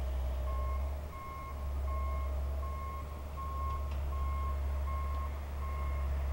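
John Deere 450 bulldozer backing up: its backup alarm beeps steadily, about once every three-quarters of a second, starting about half a second in, over the low rumble of the running engine.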